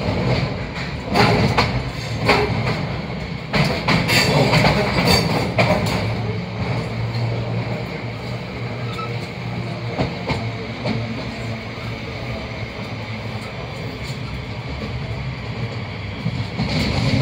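Inside a moving Class 323 electric multiple unit: the wheels clatter over the track with a run of loud clicks and knocks for the first several seconds, then settle into a steadier rumble with a low hum.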